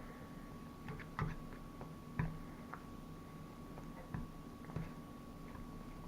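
Faint eating noises: a handful of soft clicks and taps, about one a second, over a faint steady hum.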